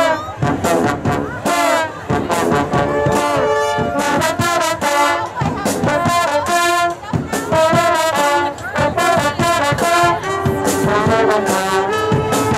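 Brass band playing a tune in the street: horn notes changing every fraction of a second over frequent sharp drum hits.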